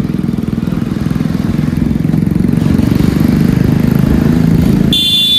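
Motorcycle engine running while riding, a steady fast pulsing that grows a little louder. Near the end the engine sound drops out and a loud, high, steady beep cuts in.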